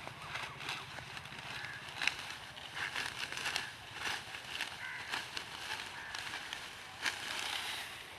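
Dry wheat stalks being cut by hand with a sickle: an irregular run of crisp snaps, crackles and rustles of the straw.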